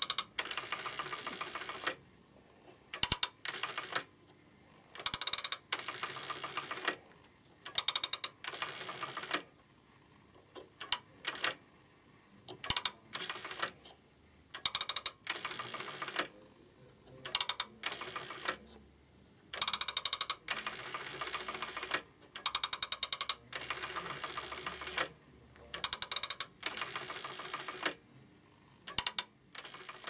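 Rotary dial of a plastic 'Nikola Tesla' automatic telephone, dialled by hand digit after digit: each turn of the dial gives a short run of rapid mechanical clicks, with brief pauses between digits.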